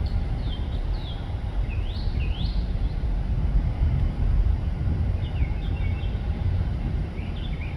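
Steady low rumble of a Boeing 737-700's jet engines at the airport, with small birds giving quick swooping chirps, most in the first few seconds and a few more later on.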